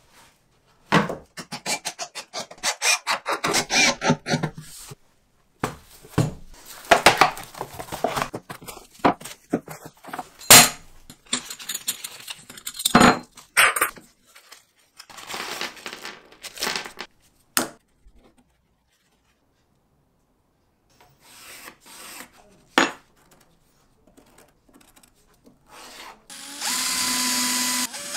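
Irregular bursts of rustling and rubbing as a chrome metal plate is wiped with paper towel. Near the end a power drill starts and runs steadily, boring a hole into a plywood board.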